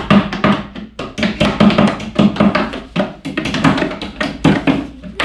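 Quick, irregular knocking, several strokes a second, as the white particleboard panels of an IKEA KALLAX shelf unit are tapped into place during assembly.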